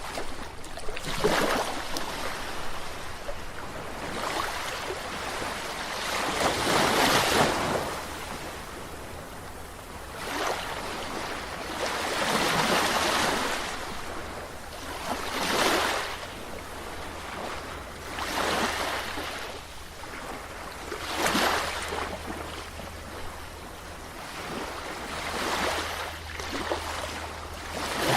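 Sea waves breaking and washing on the shore, each surge rising and falling away, about every two to three seconds, over a steady low rumble.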